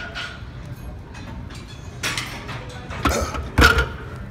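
Short strained grunts and forced breaths from a lifter in the hard reps of a barbell incline bench press, three bursts in the second half with the last the loudest. Gym background music plays underneath.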